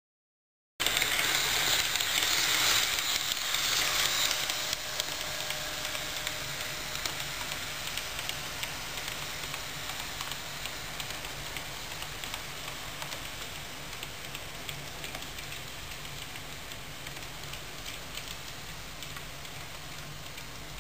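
Model train of a yellow NS Plan U set running along the track: a steady rolling hiss and motor whir with faint fine clicks, starting suddenly about a second in, loudest for the first few seconds and slowly fading as the train moves away.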